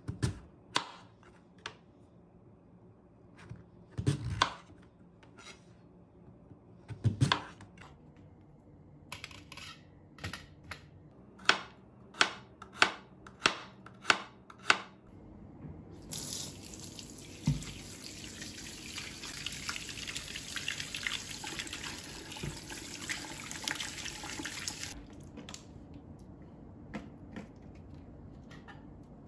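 A chef's knife cuts through a kabocha squash onto a cutting board in a few heavy knocks, then slices garlic in a quick run of about a dozen light taps. A kitchen tap then runs for about nine seconds into the sink.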